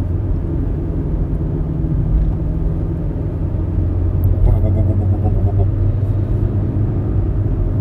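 Steady low rumble and droning 'wubbern' of a 2006 Kia Picanto 1.1 on the move, heard from inside the cabin; the mechanics take the drone for a sticking, dragging front-right brake.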